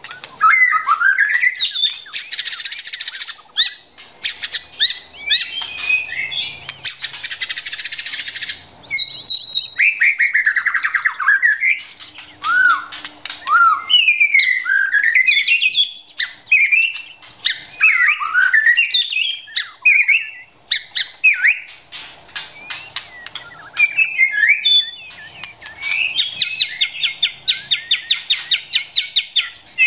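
White-rumped shama singing: a varied run of loud whistled notes that slide up and down, broken by harsh rasping notes and, near the end, a fast stuttering rattle.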